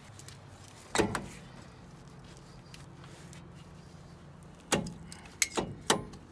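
Metal knocks and clicks of a brake caliper being fitted back over new pads onto its bracket: one sharp knock about a second in, then several quick knocks and clicks near the end.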